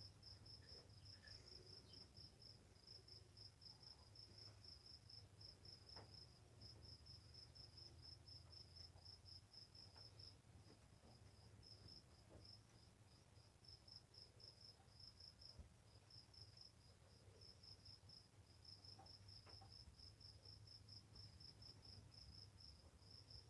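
Faint insect chirping, like a cricket: a high, rapid, steady train of pulses with brief pauses, over a low steady hum.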